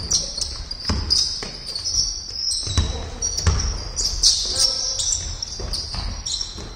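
Basketball bouncing on a wooden sports-hall floor as a player dribbles, each bounce a sharp knock that rings in the hall, with players' shouts and shoe squeaks around it.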